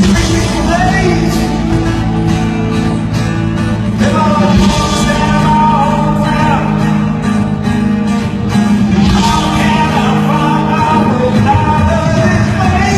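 Live rock band playing, with sung vocals over sustained chords, loud and steady.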